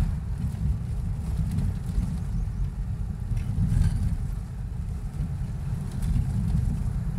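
A car driving along the road, heard from inside the cabin as a steady low rumble of engine and tyre noise.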